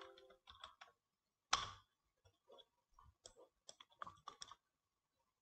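Faint, irregular clicking of a computer mouse and keyboard, a dozen or so separate clicks, the loudest about one and a half seconds in.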